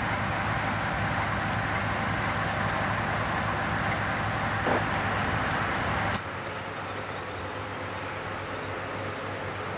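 Diesel locomotives idling, a steady low rumble with a hum. It cuts off abruptly about six seconds in, giving way to quieter, steady open-air rail-yard background.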